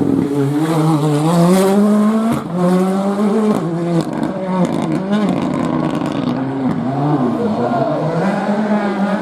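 Rally car engine revving hard, its pitch climbing and falling several times as the driver shifts gears and lifts off for corners.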